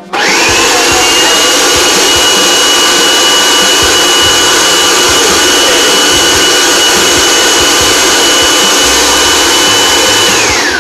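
Electric food processor running at full speed, blending a cream-cheese and cream filling with strawberry and banana pieces. Its motor starts suddenly with a whine that climbs briefly and then holds steady, and near the end it is switched off and the whine falls away.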